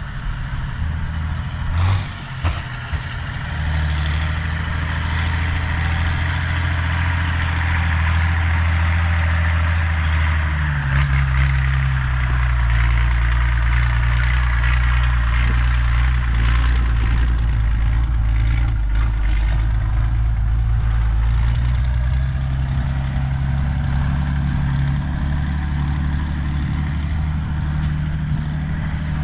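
Valmet 118 tractor's straight-piped diesel engine running steadily while working, a deep continuous engine note that changes pitch about eleven seconds in.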